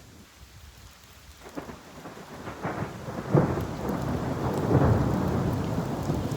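Thunder rumbling over rain: quiet at first, it builds from about a second and a half in into a deep rolling rumble with cracks, loudest twice near the middle and later on.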